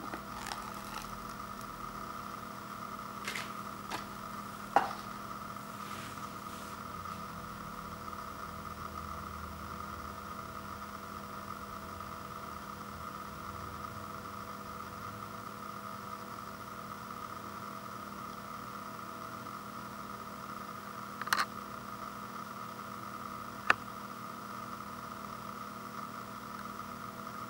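Steady background hiss with a faint constant hum. A few soft clicks come in the first several seconds, a sharper knock about five seconds in, and two more sharp clicks near the end.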